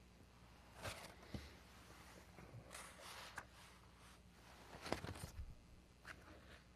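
Faint rustling and handling of papers at a lectern: a few soft, scattered shuffles and taps, the most distinct about five seconds in, over near-silent room tone.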